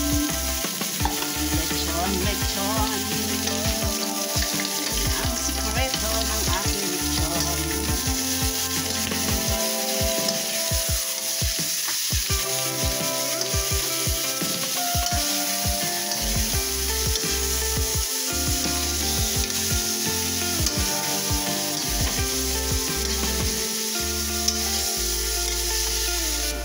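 Chopped lechon (roast pork) frying in hot oil in a wok with garlic, onion and chili, stirred and tossed: a steady sizzle with frequent short scrapes and knocks. The pork is being sautéed dry before any sauce goes in.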